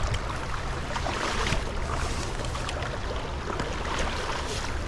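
Steady rush of a stream running high and fast, with a low rumble underneath and a few faint clicks.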